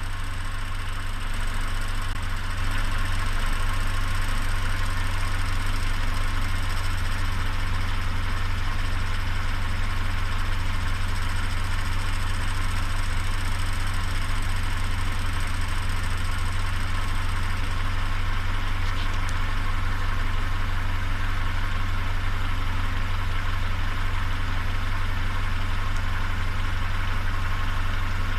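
Peugeot 407's EW10A 2.0-litre four-cylinder petrol engine idling steadily, making a noise the owner calls strange.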